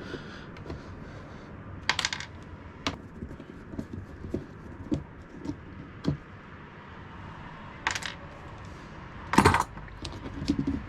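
Small metal screws clinking and scattered light clicks and taps as the screws holding a camper stereo head unit are taken out and handled, with a louder clink about two seconds in and two more near the end.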